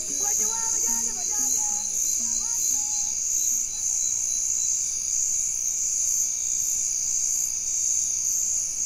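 Evening chorus of insects, a steady high-pitched shrill with a pulsing trill above it. A soft melody underneath fades out about three seconds in.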